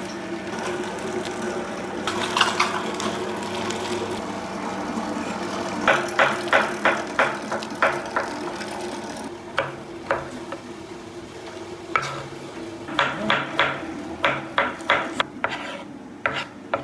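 Kitchen utensils knocking during food preparation: two runs of sharp strikes, about three a second, with a few single knocks between them, over a steady mechanical hum.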